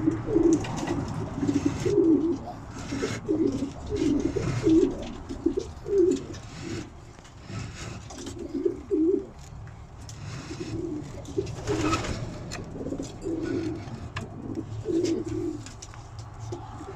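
Young racing pigeons cooing, several birds in repeated, overlapping low phrases, with occasional short clicks among them.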